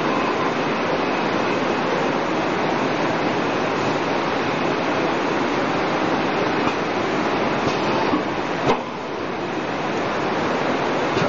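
Water bottle washing, filling and capping machine for 5-litre bottles running: a steady rush of water and machine noise. A few light clicks come through, and there is a brief knock about eight and a half seconds in, after which it runs a little quieter.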